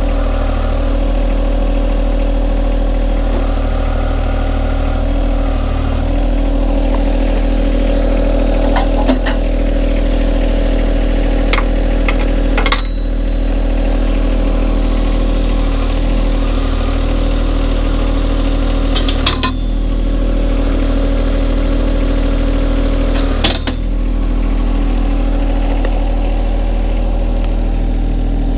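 John Deere 1025R's three-cylinder diesel engine running steadily, with a few sharp knocks scattered through it.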